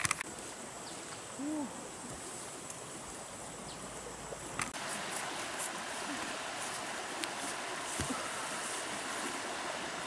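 Fast-flowing river water rushing as a steady noise that grows louder a little under halfway through, with a few light clicks. A brief low hoot-like call sounds about a second and a half in.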